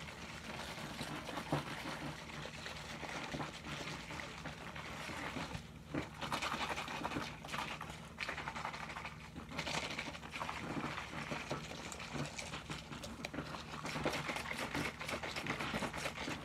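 Drink being shaken hard in a capped plastic shaker cup, liquid sloshing in uneven bursts.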